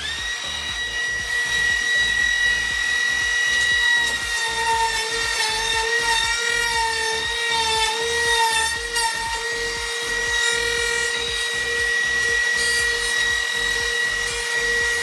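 Router spinning at high speed with a steady high whine, cutting a recess into the wooden door edge for the latch hardware. The pitch wavers and sags slightly through the middle as the bit takes load in the wood.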